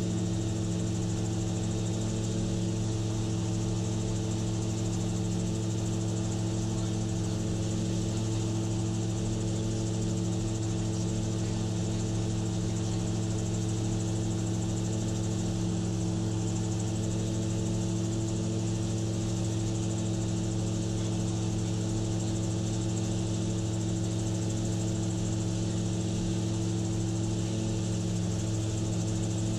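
Gyrocopter engine and propeller running steadily in flight, a constant low drone with an even rush of wind noise over it, heard from the cockpit.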